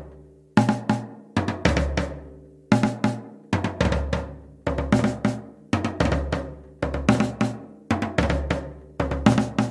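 Music with a steady, drum-heavy beat: sharp snare and kick hits about once a second, with quicker hits between, over a sustained low bass.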